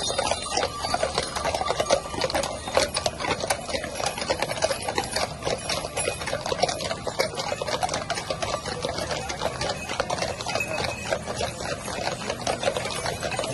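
The hooves of a team of draft horses clopping on an asphalt road as the horses walk past in line, with the chains linking them rattling. It is a dense, steady clatter of many overlapping hoof strikes.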